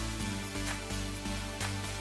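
Background music: an electronic track with sustained bass notes and a steady beat of about two strokes a second.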